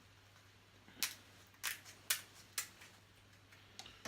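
Crab claw shell being cut: four or five sharp snips or cracks spaced about half a second apart.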